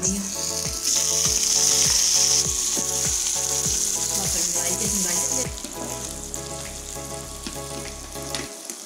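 Chopped onions and green chillies dropped into hot mustard oil in a small metal saucepan, sizzling loudly as the tempering (tarka) for a dal, while a metal ladle stirs them. The sizzle is strongest in the first couple of seconds and dies down about halfway through.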